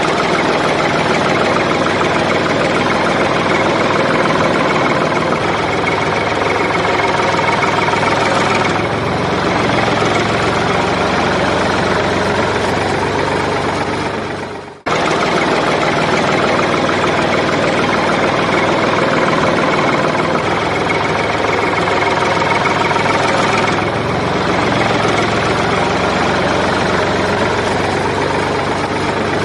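A tractor engine running steadily at idle, laid over the pictures as a sound effect. It fades away and restarts abruptly about fifteen seconds in.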